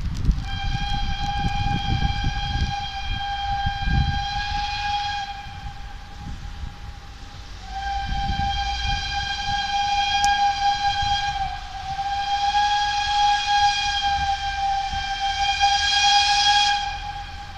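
Steam locomotive whistle sounding three long, steady blasts of about four to five seconds each as the train approaches, with gusts of wind rumbling on the microphone.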